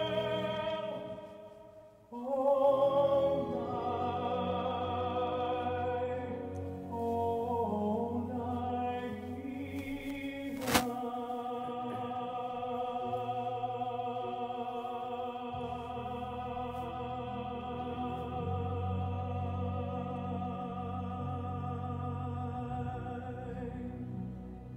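Slow, sustained film-soundtrack music with a wavering operatic solo voice over choir and orchestra, played over the room's speakers. The music almost fades out about two seconds in, then comes back in loudly, and a single sharp click cuts through it about eleven seconds in.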